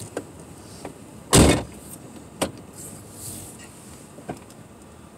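Quiet background inside a stopped car, broken by a few light clicks and one loud, short thump about a second and a half in.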